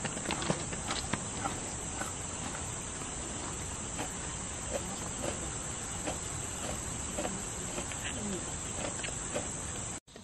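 A steady, continuous high-pitched drone of forest insects, with scattered light clicks and knocks underneath. The sound cuts off suddenly near the end.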